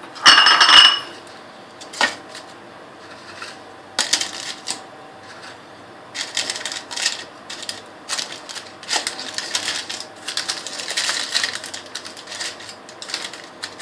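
Crinkly butter paper lining a loaf mould rustling and crackling as crisp rectangular biscuits are set into it one by one, with light clicks as each biscuit goes down. A louder burst comes just after the start, then the clicks and rustles continue in irregular clusters.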